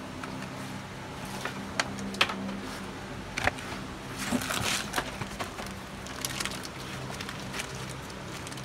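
Plastic bags and packaging crinkling and rustling as hands rummage through a cardboard box of small boxed electronics, with scattered sharp clicks and taps of items knocking together. A faint steady low hum runs underneath.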